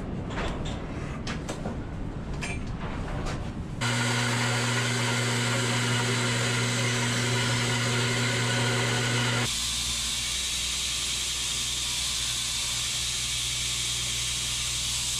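A few light clicks and knocks of a steel rule and a marker on a metal saw table. Then about 4 seconds in a bandsaw starts and runs with a steady hum while it saws a wooden handle block lengthwise into scales. About 9.5 seconds in this gives way abruptly to a belt grinder's loud even hiss as the wood is sanded on the abrasive belt.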